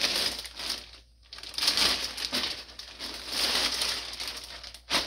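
Crinkling and rustling of a jacket's fabric as a hand rummages inside it for the size tag, in three bursts with short pauses, and a short sharp click near the end.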